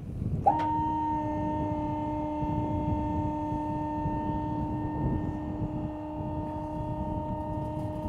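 Dump trailer's electric hydraulic pump switched on with a click, briefly spinning up and then running with a steady whine as the dump bed lifts.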